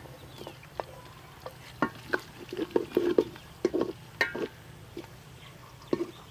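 Spoon stirring onions and green chillies frying in ghee in a pot, with short scrapes and knocks against the pot over a faint sizzle, busiest in the middle.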